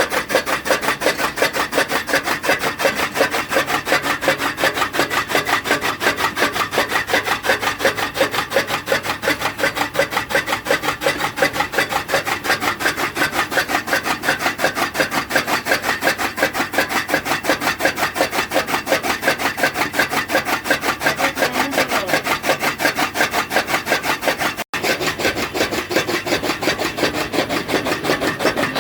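Fodder cutter chopping animal feed: a fast, even rhythm of rasping cutting strokes, several a second, breaking off for an instant near the end.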